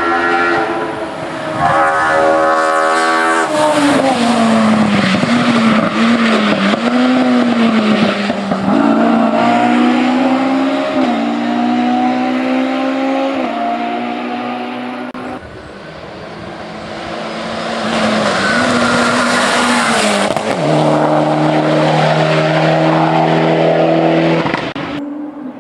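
Hillclimb race car engines revving hard under full throttle, the pitch climbing and then dropping at each gear change. About fifteen seconds in the sound cuts to another car, which grows louder as it approaches and runs past at high revs.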